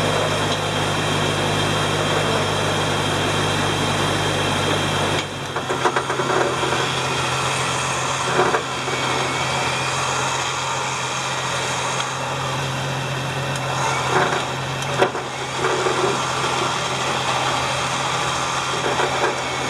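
Smittybilt electric winch running under load, pulling the Jeep in on its cable, over a running engine, with a steady hum and a few scattered knocks. The sound changes abruptly about five seconds in.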